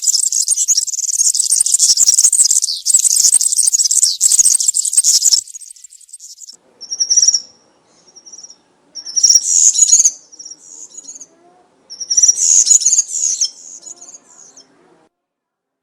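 European serin singing its fast, high-pitched jingling song: one unbroken run for the first five seconds or so, then several shorter bursts, dying away near the end.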